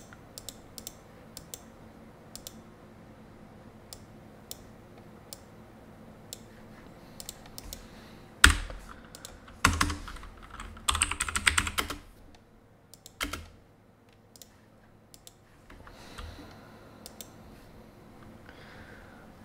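Computer keyboard keystrokes and clicks over a faint steady hum: scattered single clicks, a louder knock about eight and a half seconds in, then a quick run of keystrokes between about ten and twelve seconds.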